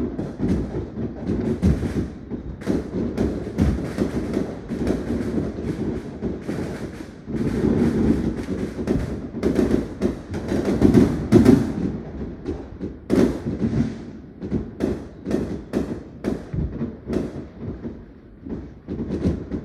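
Many fireworks and firecrackers going off at once: a dense, irregular run of bangs and crackles over a steady low rumble of booms. The barrage is heaviest about halfway through.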